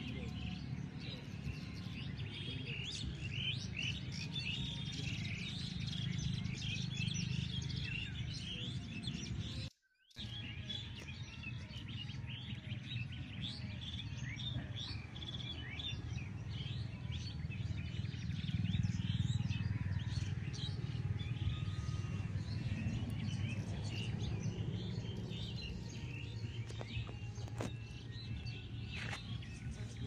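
Many small birds chirping and tweeting densely together over a steady low hum. The sound cuts out for a moment about ten seconds in.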